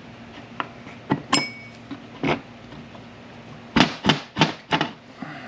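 Metal-on-metal clinks and knocks as steel shift-tower parts are worked together while a shift rail is fitted. One clink about a second and a half in rings briefly. Near the end comes a quick run of about five louder knocks.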